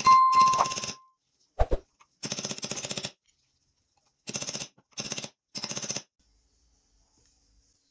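Metal parts of a manual meat grinder being handled: a knock that rings briefly, a pair of clicks, then four short bursts of rapid clicking.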